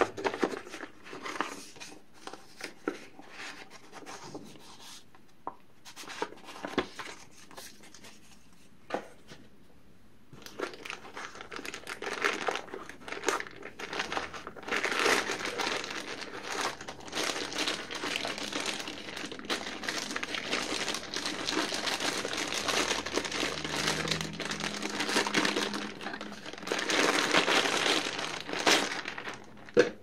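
Packaging being handled: scattered rustles and taps as paper inserts are lifted out, then, from about a third of the way in, continuous loud crinkling of the clear plastic bag as a mechanical keyboard is pulled out of it. A sharp knock comes near the end.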